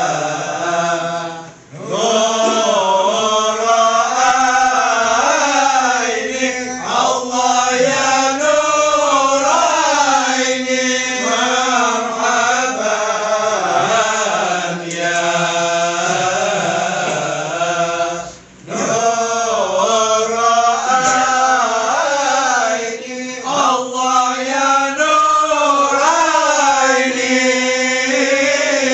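A group of men chanting marhaban together, slow drawn-out melodic lines that waver up and down in praise of the Prophet. The singing stops for a breath about a second and a half in and again a little past the middle, then resumes.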